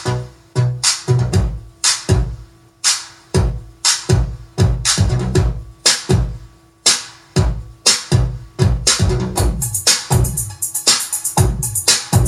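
Electro-style dance music mixed live on a DJ controller: a drum-machine beat of sharp hits over deep bass thumps. The beat grows busier, with rapid high hits, from about eight seconds in.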